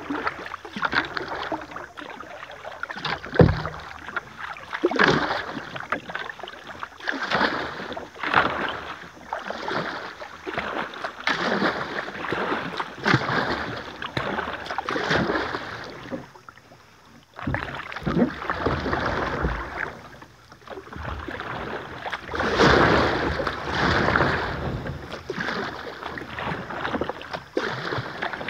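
Kayak paddle strokes, the blades dipping and pulling through the water in a swish every second and a half or so, with a sharp knock about three seconds in and a brief pause past the halfway point.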